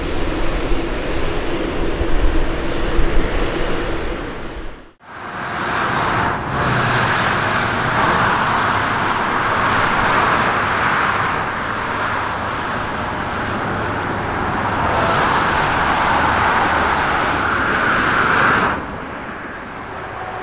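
Jet airliner noise in two parts. First the low rumble and steady hum of a Boeing 787-9's engines as it taxis, which cuts off abruptly about five seconds in. Then the steady roar of a Boeing 747-8 freighter's four GEnx engines on landing, which drops away abruptly shortly before the end.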